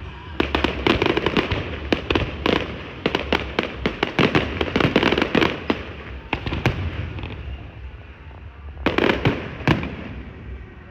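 Fireworks going off in rapid, dense volleys of sharp bangs and crackles for several seconds, easing off, then another short cluster of bangs near the end.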